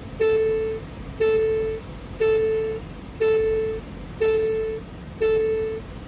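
Electronic beeper sounding a steady, mid-pitched beep about once a second, each beep lasting about half a second, six times in a row, with a short hiss about four seconds in.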